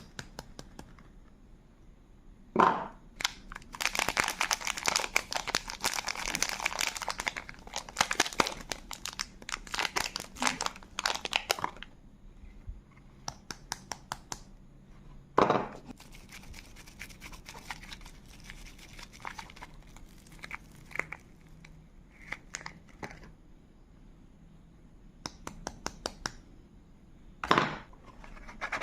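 Soap bar wrappers being torn open and crinkled by hand, in long stretches of crinkling and tearing packaging. Three sharp knocks are spread through it.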